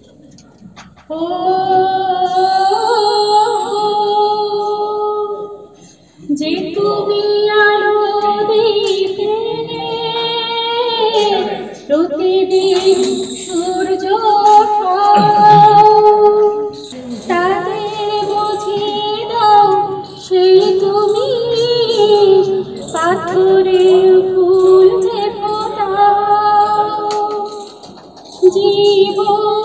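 A woman singing a song in long held phrases, with short pauses for breath between them.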